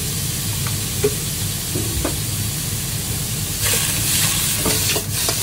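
Shredded green vegetable sizzling as it is stir-fried in a wok, with a metal spatula scraping and ticking against the pan. The sizzle grows louder a little before four seconds in.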